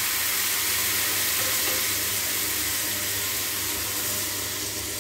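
A hot oil tadka of whole spices and chilli, turmeric and coriander powders in a steel kadhai sizzling hard as soaked tamarind and its water are poured in from a steel mug. It makes a steady hiss that slowly dies down.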